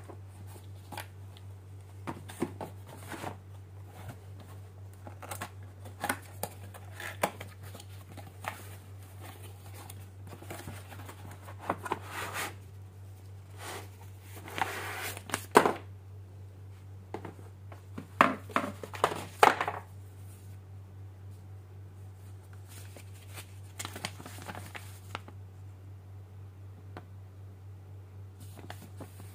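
Unboxing handling sounds: cardboard packaging, a plastic surge protector and its cord being lifted out and moved about, with rustles, light knocks and scrapes coming in clusters, loudest about halfway through and again about two-thirds in. Near the end the paper instruction sheet is unfolded. A steady low hum runs underneath.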